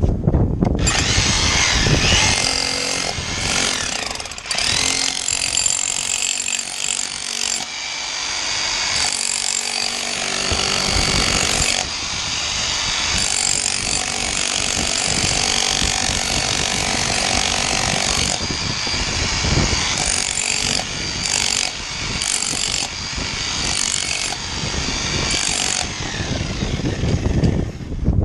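Electric rotary hammer with a chisel bit chipping concrete, a fast rattling hammering that runs nearly the whole time with small swells and dips as the bit bites and is repositioned.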